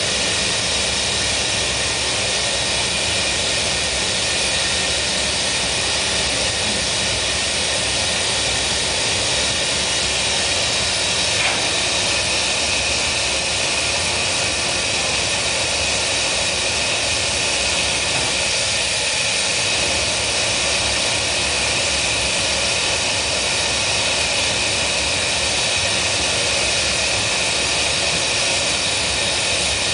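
Gas-fired glassblowing glory hole burner running with a steady rushing noise.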